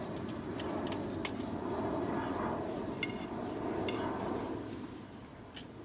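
Eating utensils clicking and scraping against a plate or pan while a meal is eaten: a series of light clicks, one with a brief metallic ring about three seconds in, over a steady low background noise.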